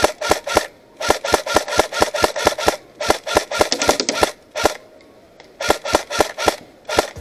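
Airsoft electric rifle firing bursts of rapid shots, several a second, with short pauses between the bursts and a last single shot near the end.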